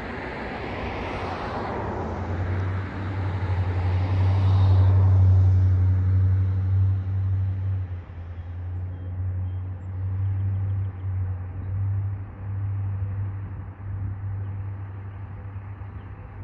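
Diesel locomotive engine running with a steady low drone that swells to its loudest about five seconds in, with a rushing noise over the first few seconds that fades away.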